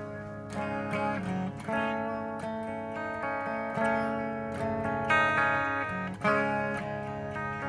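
Epiphone Les Paul electric guitar played through a Marshall JCM2000 TSL 60 amp on its clean channel: a run of picked chords and single notes, each left to ring.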